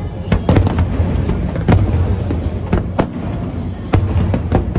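Aerial fireworks bursting one after another: sharp, irregular cracks and bangs over a continuous low rumble, with the loudest reports about three and four seconds in.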